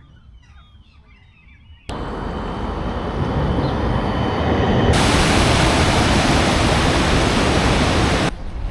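Rushing water of a waterfall, a loud steady roar that starts abruptly about two seconds in, grows louder and fuller about halfway through, and cuts off sharply near the end. Before it, a quiet stretch with faint bird chirps.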